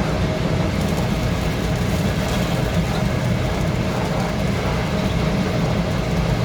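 A steady mechanical drone with a low hum and a faint steady tone above it.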